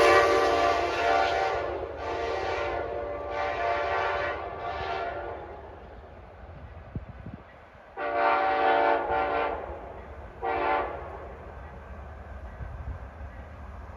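Train air horn sounding a string of blasts as a horn show: a long chord that fades, several shorter blasts, a pause of about three seconds, then three more short blasts. A low rumble of the passing train runs underneath.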